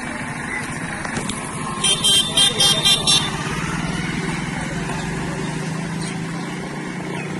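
A vehicle horn beeps about six times in quick succession around two seconds in, over the steady running of a motor vehicle engine.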